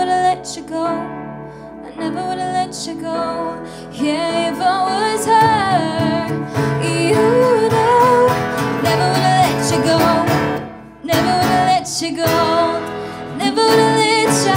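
Live pop ballad: a woman singing over acoustic guitar, keyboard and drums. The voice comes in fuller and louder about four seconds in.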